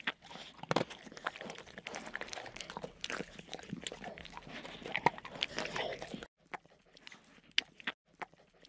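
A dense run of irregular crackling and crunching clicks, a cartoon sound effect, stopping about six seconds in, with a few single clicks near the end.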